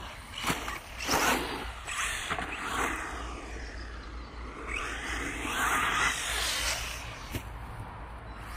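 Electric radio-controlled car driving on a dirt track, its motor whine rising and falling with the throttle over the noise of tyres on dirt, with a few short knocks.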